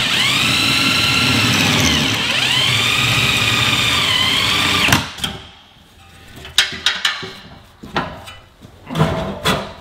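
Power drill spinning the screw of a scissor-type motorcycle jack to raise it, a steady motor whine for about five seconds whose pitch sags and recovers as it takes the load. After that, scattered metallic clicks and knocks.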